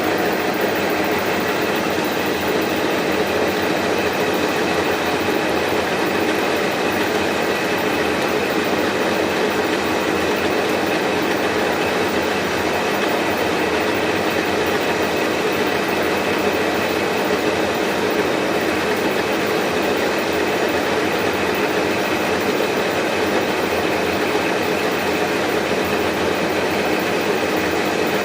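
Milling machine running steadily while its cutter mills holes in metal, a constant mechanical noise with a few steady tones held through it.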